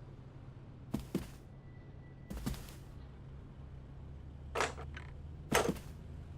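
Added sound effects: a handful of short sharp knocks or hits, some in quick pairs and the loudest near the end, over a low steady hum.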